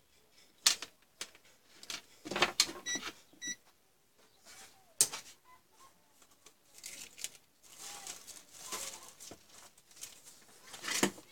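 Clicks and knocks of multimeter test probes and leads being handled and set down on a workbench, with two short electronic beeps about three seconds in. Soft rustling handling noise follows in the second half, louder near the end.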